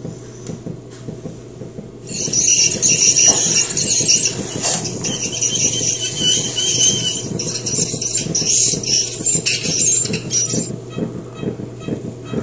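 Ultrasonic dental scaler working on a dog's teeth: a loud, high-pitched hissing squeal that starts about two seconds in and stops near the end, over a steady low hum.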